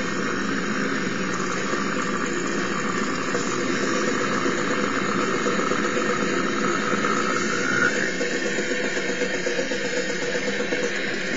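Brutal slam death metal playing, a dense wall of heavily distorted instruments, with deep guttural vocals performed over it.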